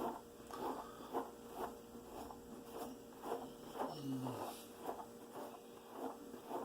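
A hairbrush drawn repeatedly through hair, a soft rasp about twice a second. A short low sound comes about four seconds in.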